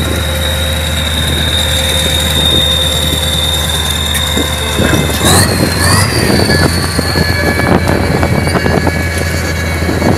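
Tracked armoured vehicle running, with a steady low engine note, a high whine and its tracks clanking. About halfway through the whine rises and the clanking grows louder as the vehicle moves off along the road.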